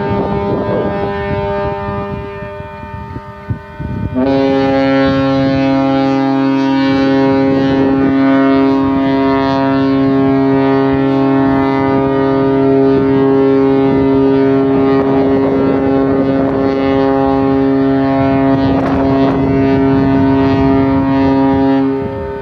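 Ships' horns sounding. An earlier blast fades away, then a long steady blast on a deep, rich horn chord starts suddenly about four seconds in, holds for about eighteen seconds, and stops shortly before the end.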